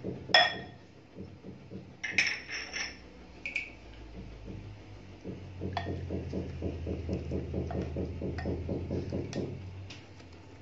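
Two ringing glass clinks, a glass cup knocking against a glass mixing bowl. Then a wooden spoon stirring a milky liquid in the glass bowl, in quick even strokes about four to five a second, for about four seconds.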